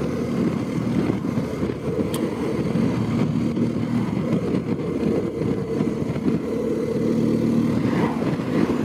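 BMW GS motorcycle's boxer-twin engine running at a steady cruise, with a steady rush of wind noise. A single faint tick about two seconds in.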